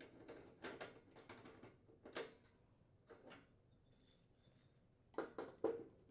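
Gas cooktop burner bases being lifted off and handled: faint, scattered light clinks and knocks, with three quick knocks close together about five seconds in.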